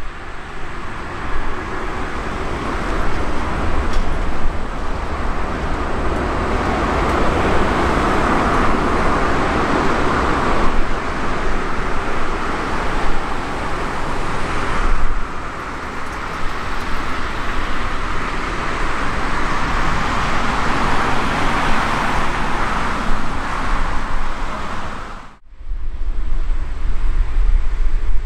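Jet engine noise from an Airbus A350-1000's Rolls-Royce Trent XWB engines: a loud, steady roar with a low rumble beneath, swelling and easing slightly. It cuts out abruptly about 25 seconds in, then resumes.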